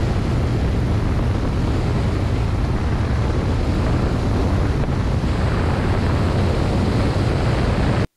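Wind rushing over a wing-mounted camera on a Velocity canard aircraft in flight, mixed with the aircraft's engine and propeller. The rush changes with airspeed as the aircraft oscillates in pitch hands-off, turning brighter about five seconds in.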